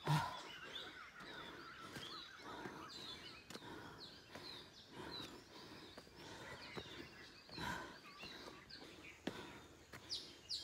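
Several small birds chirping and calling in short, repeated high notes, with a few soft footfalls on stone steps, the strongest right at the start.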